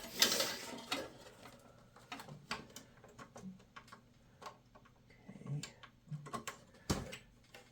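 Scattered small plastic and metal clicks and knocks, with a brief rustle just after the start and a sharper click near the end, as a CD-ROM ribbon cable is handled and pushed onto its connector inside a PC case.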